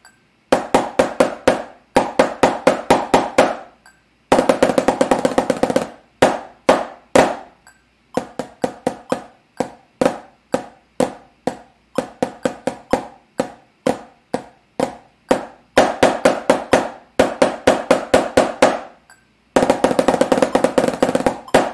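Snare drum played forte with a pair of drumsticks: groups of quick strokes and rudimental patterns with short gaps between phrases. A sustained roll comes about four seconds in, and another near the end.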